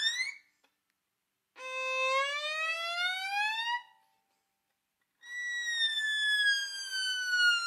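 Violin glissandi, each note played by sliding one finger along the fingerboard. A rising slide ends just after the start. Then comes one long slide upward, and about five seconds in a long slide downward, with short silences between the notes.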